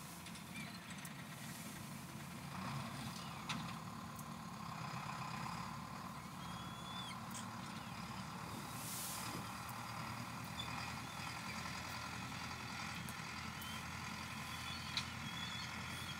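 Tractor engine running steadily, with a few thin, high calls of red kites overhead.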